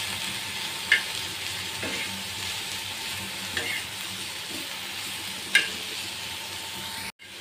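Sliced bitter gourd and potato frying with a steady sizzle on a flat pan while a metal spatula stirs and turns them, the spatula clicking and scraping against the pan a few times. The sound drops out briefly near the end.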